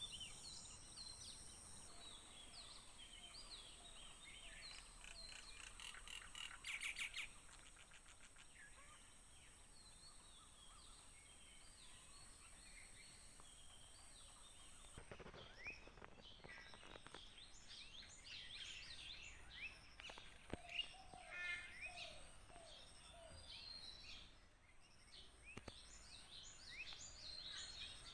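Faint mixed morning birdsong: many small birds chirping and twittering, with one rapid trill early on. A steady high whine runs underneath and stops abruptly about halfway through.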